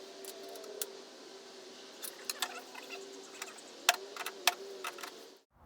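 Sharp metallic clicks and clinks of hand tools and fasteners as a speaker driver is unbolted from a wooden console stereo cabinet, coming thicker in the second half. A faint wavering hum runs underneath, and the sound cuts off just before the end.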